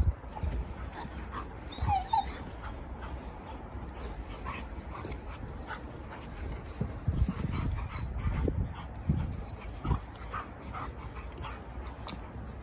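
German shepherd puppy and adult dog at play: a few brief high dog calls about two seconds in, amid scattered thumps and scuffling.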